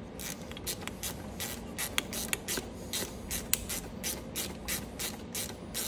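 Hand ratchet with a 10 mm socket on an extension, clicking in quick short strokes, about four or five a second, as a 10 mm bolt is run in.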